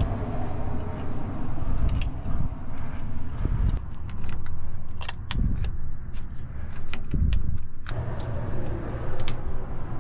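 Scattered small metallic clicks and clinks as a golf cart's battery cables and terminal hardware are handled, over a steady low rumble.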